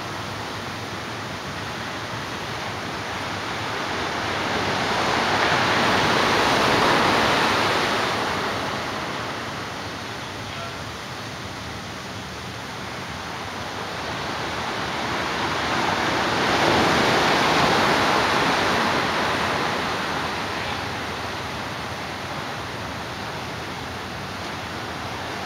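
Ocean surf breaking on a sandy beach: a steady rushing wash that swells up twice as waves break and run up the sand.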